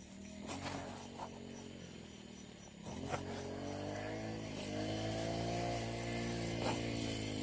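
An engine running steadily, growing louder about three seconds in with a slowly wavering pitch, over a few light clicks and rustles of root crops being handled into a woven plastic sack.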